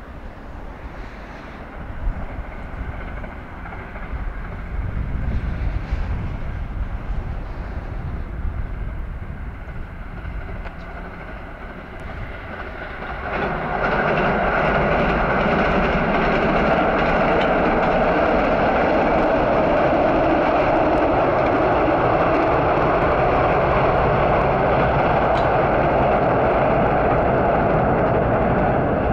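Diesel railcar running on the line. A low rumble rises and fades through the first part. About halfway through, a loud, steady engine and running noise sets in suddenly and holds.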